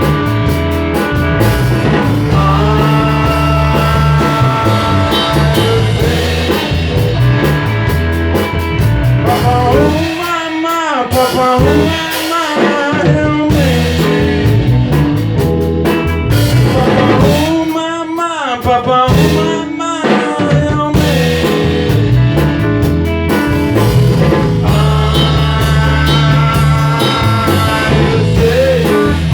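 Rock band rehearsing an instrumental passage: electric guitar, bass and drum kit. Twice the bass and drums drop away, leaving bending guitar notes, before the full band comes back in.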